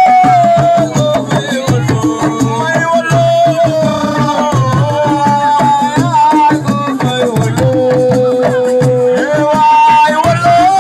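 Assiko band music: fast, dense hand-drum percussion under a held melody line that slides between notes.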